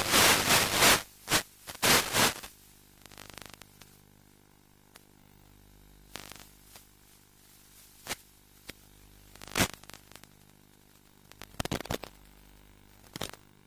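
Bursts of radio static and crackling from a weak 10 mW analog FPV video link breaking up. The static is loudest and nearly continuous in the first two seconds, then comes in short scattered bursts and clicks over a faint steady hum.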